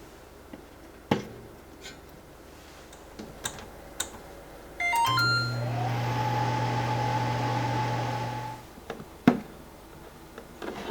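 Microwave oven: a few quick keypad beeps, then the oven running with a steady hum for about three and a half seconds before it stops. Scattered clicks and light knocks come before it, and a sharp knock just after it stops.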